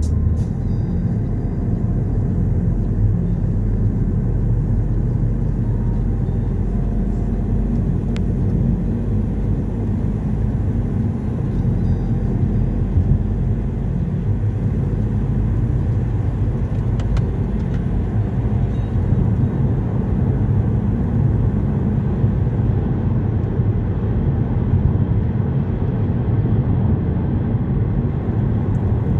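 Steady low road and engine rumble of a car driving at speed on a motorway, heard from inside the cabin.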